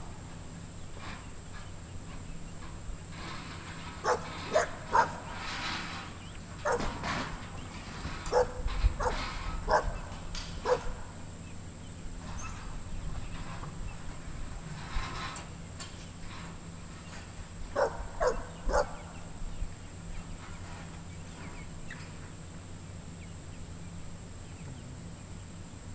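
A dog barking in short clusters of two or three barks, several times over, with long pauses between them, over a steady high-pitched drone.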